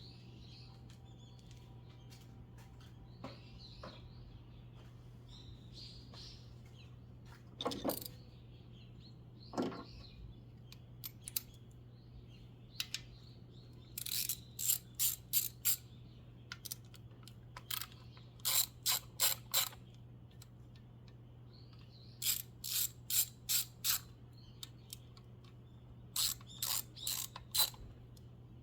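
Ratchet wrench clicking in quick runs of strokes, four rounds in the second half, with a few single tool knocks before them: bolts being turned during a spark-plug change on a Suzuki Jimny.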